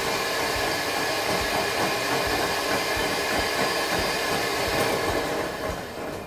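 Electric hand mixer running steadily, its beaters whipping chilled cream to stiff peaks in a glass bowl: an even motor whine with the churn of the beaters, dying down about five seconds in.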